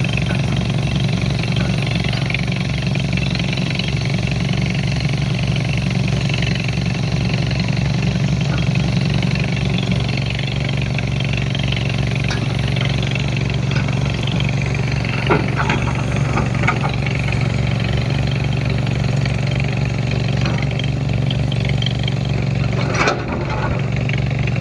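Excavator's diesel engine running steadily with an even low throb. A few light clicks and knocks come through the middle.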